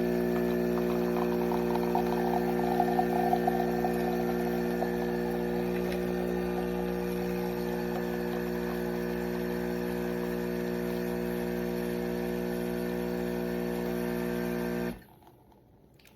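KEENSTAR 20-bar espresso machine's pump humming steadily while it pushes water through the coffee grounds to brew. It cuts off suddenly about a second before the end as the brewing cycle finishes.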